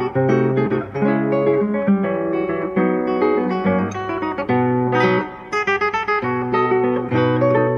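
Background music: acoustic guitar playing a run of plucked notes and chords.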